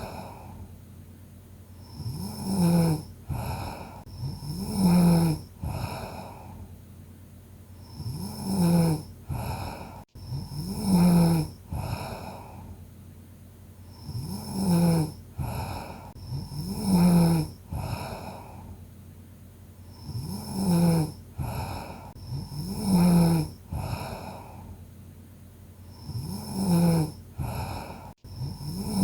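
A sleeping person snoring in a steady rhythm: two loud snores about two seconds apart, then a pause, the pattern repeating roughly every six seconds.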